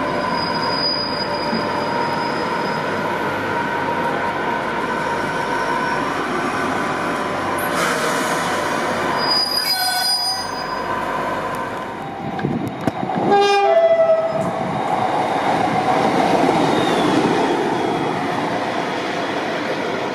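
A train running through a station, a steady rumble with high whining tones over it, and a short horn blast about 13 seconds in that is the loudest moment.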